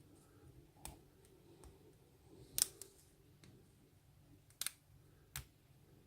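Lock pick and tension wrench working the pins of an Abus 54TI/50 padlock during single-pin picking: a handful of sharp metallic clicks a second or two apart, with fainter ticks between.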